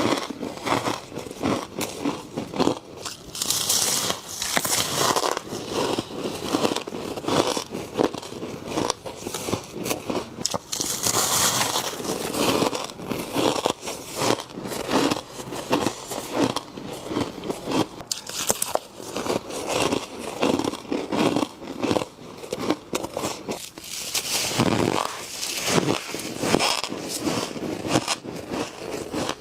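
Humidifier frost being bitten and chewed close to the microphone: dense, irregular crunching and crackling.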